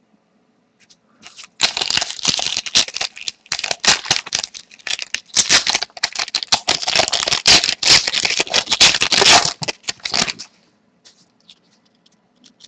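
A 2010-11 Zenith hockey card pack's wrapper crinkling and tearing as it is opened by hand. It starts about a second and a half in as a dense crackle and stops about ten seconds in.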